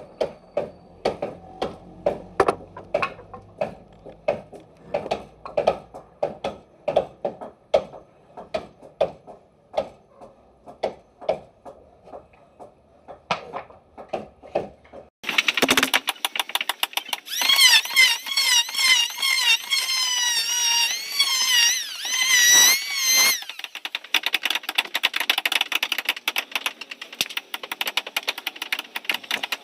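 Woodworking: regular tool strikes about two a second. About halfway in, a power tool starts abruptly: its high whine dips and rises repeatedly, then settles into a fast buzzing rattle.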